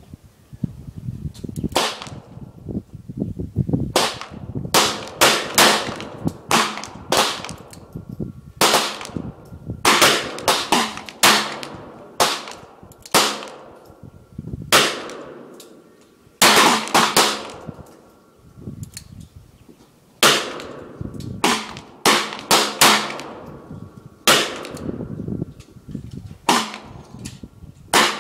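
Handgun shots on a range firing line, including a Taurus .357 Magnum revolver: many sharp shots at an irregular pace, some louder and some fainter, each trailing off in a short echo.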